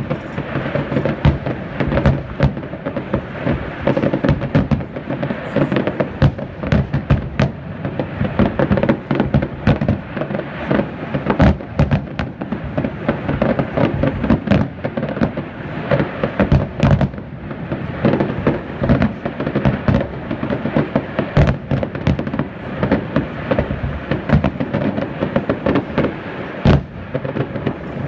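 Aerial firework shells bursting in a dense, continuous barrage of bangs, several a second, with the booms echoing into one another.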